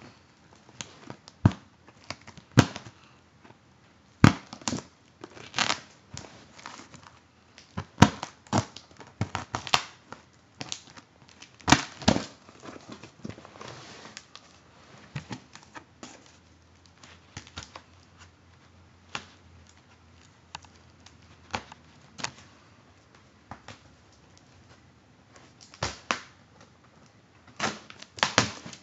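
A cardboard shipping box and its packing being handled by hand: irregular sharp crackles, rustles and knocks of cardboard and packing, in clusters a second or two apart.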